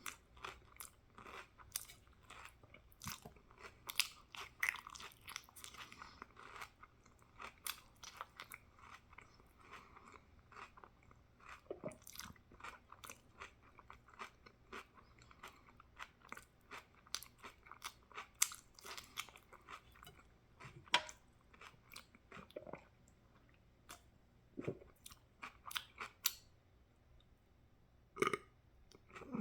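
A person eating crunchy food: repeated bites and chewing with many irregular crisp crunches, pausing briefly near the end.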